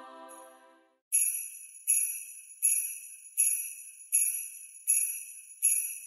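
Sleigh bells shaken on a steady beat, about one shake every three-quarters of a second, in Christmas background music; a held music chord fades out just before the bells begin.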